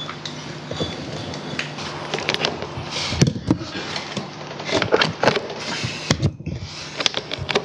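Scattered clicks, taps and knocks of metal parts and tools being handled while a motorcycle's clutch cable is hooked up and routed, over a steady low hum.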